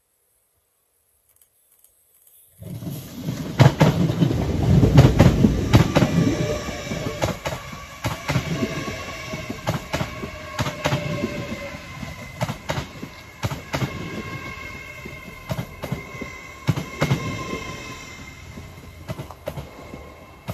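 LNER Azuma train passing close by as it slows into the station: wheels clicking over rail joints under a whine at several steady pitches. The sound cuts in suddenly about two and a half seconds in, is loudest over the next few seconds, then eases.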